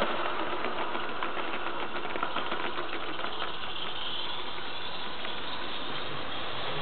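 Garden-scale model freight train of covered vans rolling past on the track, a steady mechanical running sound with a rapid run of clicks and rattles. It fades after about three and a half seconds, leaving a steady background noise.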